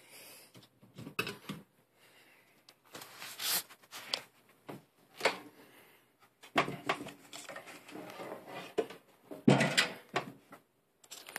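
Handling noise from a vintage 12-inch Eskimo box fan being moved and turned around by hand: irregular knocks, clunks and scrapes, the loudest cluster about two-thirds of the way through.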